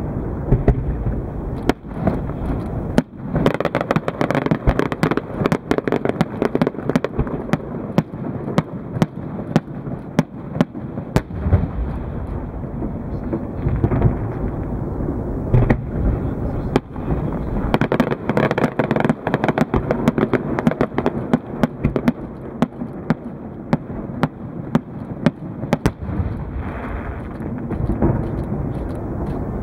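Large fireworks display: aerial shells and ground effects bursting without pause, many sharp bangs in quick succession over a continuous dense crackle.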